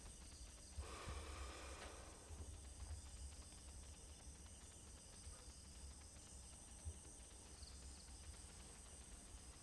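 Near silence: room tone with a steady low rumble and faint hiss, and a faint soft noise lasting about a second, about a second in.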